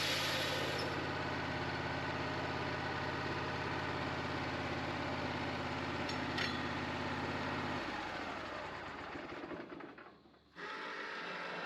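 Portable band sawmill's engine running steadily, with a high hiss from the cut fading out in the first second. The engine sound stops about eight seconds in.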